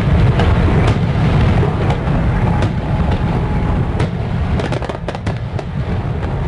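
Fireworks sound effect: a continuous low rumble of bursts with scattered sharp crackles and pops, slowly easing off.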